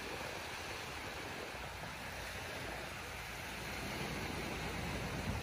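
Small waves washing steadily onto a sandy beach, with wind rumbling on the microphone.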